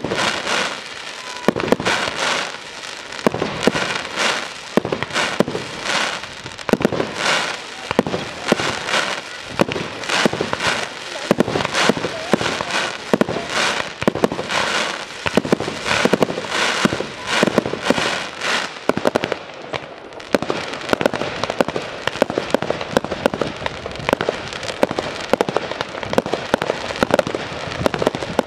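Fireworks display: aerial shells launching and bursting in quick succession, about one loud report a second, changing in the last third to a denser stream of smaller pops.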